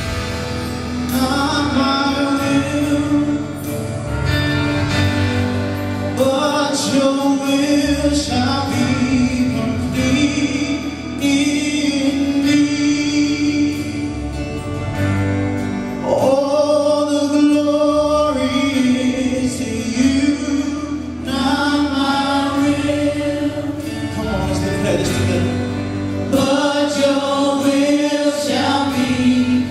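Live worship band playing a gospel-style song, with several singers singing together over guitars and drums.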